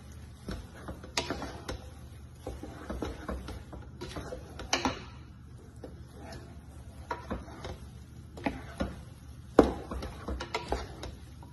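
A wooden spatula and a second utensil scrape and knock against a frying pan while rice noodles and vegetables are tossed: irregular clicks and scrapes, with one sharper knock late on.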